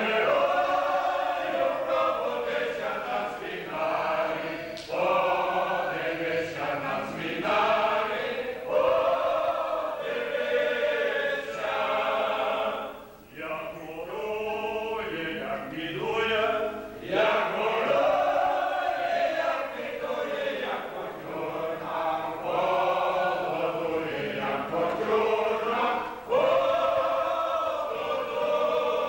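Mixed choir of men and women singing a Ukrainian lament in Ukrainian, phrase after phrase, with a brief pause about 13 seconds in.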